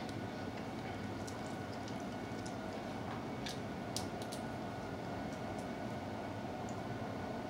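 Steady hum of a room air conditioner, with scattered small clicks and soft chewing sounds of people eating.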